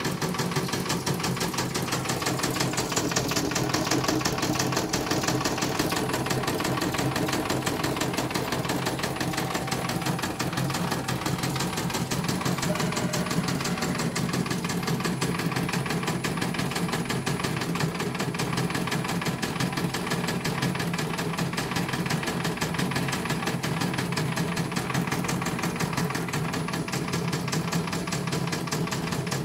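CNY portable computerized embroidery machine stitching out a test design. Its needle bar runs in a fast, steady, even rhythm without pause.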